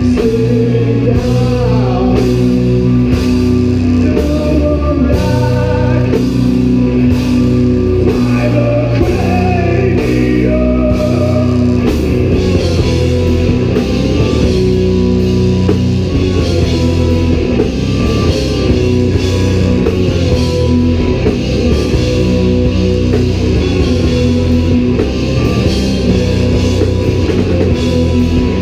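Live rock band playing loud: distorted electric guitars and bass over a drum kit, with some bending guitar notes in the first half.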